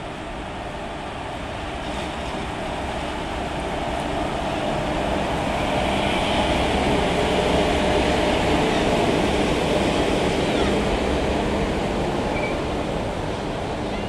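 Passenger train hauled by a WAG-7 electric locomotive rolling past close by on the track: a steady rushing rumble that builds to its loudest about six to ten seconds in as the locomotive goes by, then eases a little as the coaches follow.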